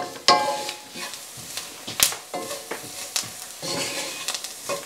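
Wooden spatula stirring and scraping onions and a flour-and-fat paste (a roux) around a cast-iron skillet, with a light sizzle as the roux cooks. The scraping strokes come irregularly, with one sharp knock about two seconds in.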